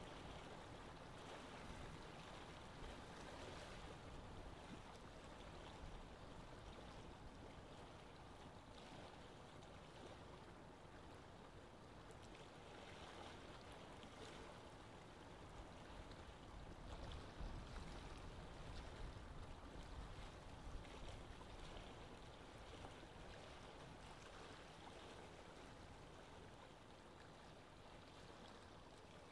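Faint, steady trickling of water circulating in an aquarium.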